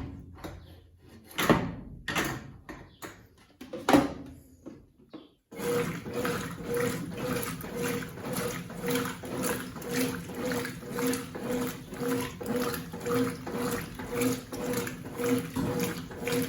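A couple of knocks, then about five seconds in the Consul CWC08 washing machine starts agitating a load of a single-bed quilt: the motor runs in an even back-and-forth rhythm of about two strokes a second, with water sloshing in the tub.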